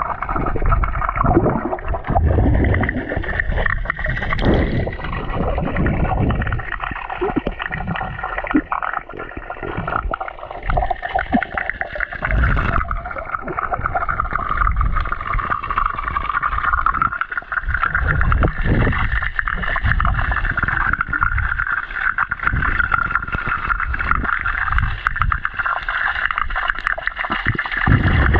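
Sound picked up by an action camera held underwater in a swimming pool: muffled swishing, gurgling and low knocks as a swimmer moves the water and breathes out bubbles, over a steady high hum that wavers slightly in pitch.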